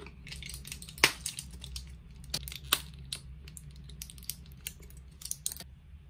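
A quick run of crisp clicks and crackles from something being handled, with the loudest snap about a second in, stopping shortly before the end.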